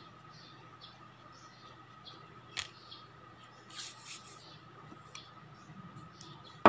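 Faint scraping and small sharp clicks of a nail-cleaning tool working at fingernails, over a faint steady high hum, with a single loud knock right at the end.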